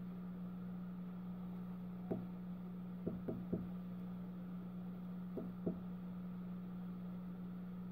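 Light clicks and taps of fingers working on a Samsung Galaxy S7 Active's plastic frame with the screen lifted: one click, then three in quick succession, then two more, over a steady low hum.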